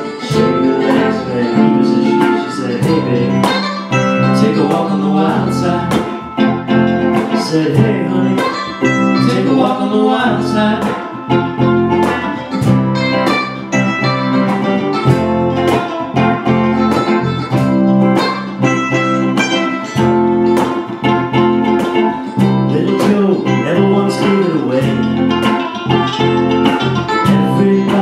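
Live band playing a folk-rock song on electric guitar, bass guitar and cajon, with the cajon keeping a steady beat.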